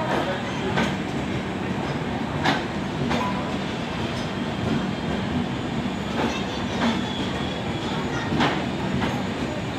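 Passenger train coaches rolling past close by: a steady rumble of wheels on rails, with sharp clacks every second or so as the wheels cross rail joints.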